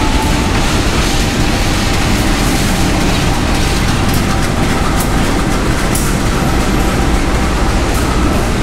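Passenger train running on the rails: a loud, steady rumble and hiss, with a few short sharp clicks partway through.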